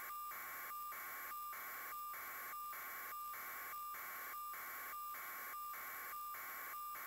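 Steady electronic static hiss with a faint high tone in it, broken by brief regular dropouts about every 0.6 seconds.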